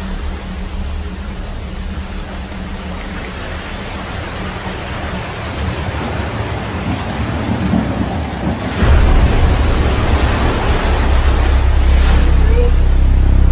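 Storm at sea in a film soundtrack: a steady rushing of wind, rain and surf over a deep rumble. The rumble jumps suddenly louder about nine seconds in and stays heavy.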